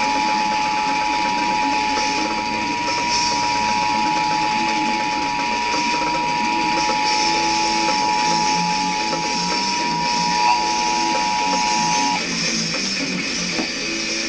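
Emergency Alert System attention signal: two steady tones (853 and 960 Hz) sounding together over guitar-based program music. About ten seconds in, the lower tone jumps slightly with a click, and both tones cut off about two seconds later while the music plays on, the glitch the uploader calls the tone choking.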